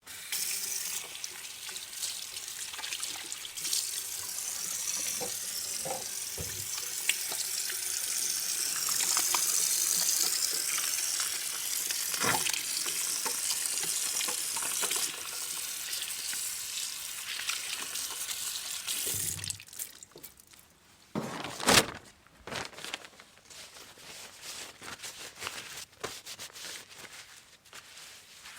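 Hands being washed under a running tap: water splashes steadily into the sink for most of the clip, then the flow stops about two-thirds of the way through. Scattered small wet sounds follow, with one short, sharp, loud sound a couple of seconds after the water stops.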